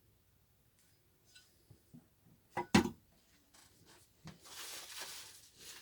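A single sharp knock, something hard set down or bumped, then a steady rustling of packing material being handled and unwrapped.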